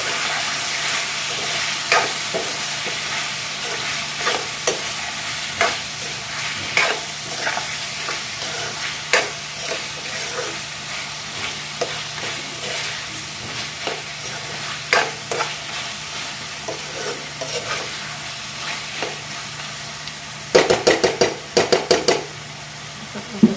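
Chicken curry sizzling in a kadai while being stirred, the spoon scraping and knocking against the pan every second or so over a steady sizzle. Near the end comes a quick run of louder knocks.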